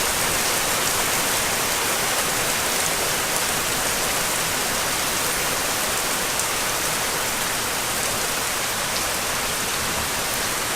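A steady, even rushing noise, like heavy rain, that starts abruptly and fades out near the end.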